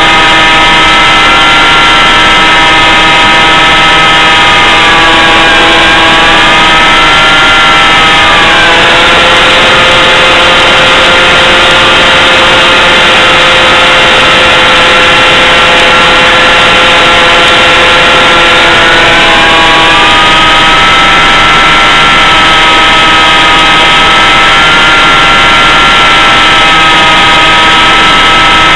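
Electric motor and propeller of a BlitzRCWorks Sky Surfer RC plane whining steadily over a loud hiss of wind and snow. The pitch drops about nine seconds in and climbs back about twenty seconds in, as the throttle changes.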